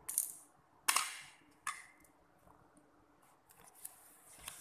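Plastic LEGO pieces knocking and clicking against a hard floor as a built section is set down: three sharp knocks in the first two seconds, then a few lighter ticks near the end.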